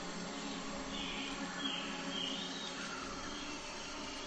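Tropical rainforest ambience: scattered short chirps from birds or insects over a faint steady hum.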